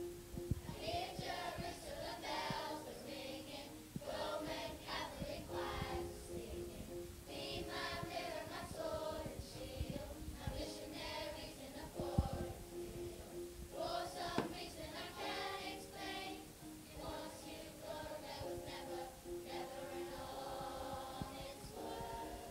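A children's group singing together in phrases, with a repeated pulsing note sounding between phrases. Two sharp knocks come about halfway through.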